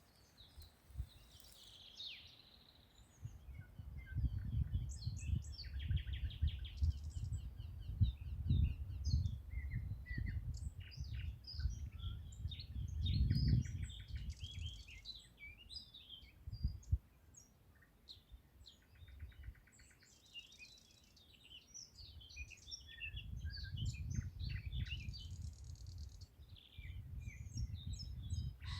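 Several songbirds singing and chirping, with quick high chirps and rapid trills overlapping. An intermittent low rumble swells in and out underneath and is at times louder than the birds.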